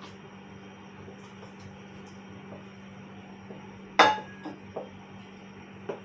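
A stirring utensil knocks sharply against the saucepan of porridge about four seconds in, ringing briefly, followed by a few lighter knocks, over a steady low hum.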